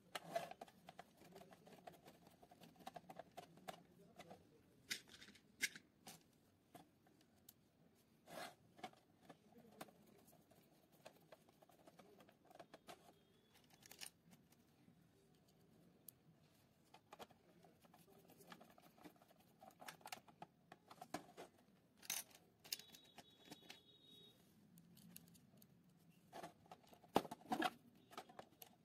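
Quiet handling of a plastic toy coin bank's case: scattered light clicks, taps and rubbing as the parts are moved and fitted together, with a few louder clicks near the end as a screwdriver works a case screw.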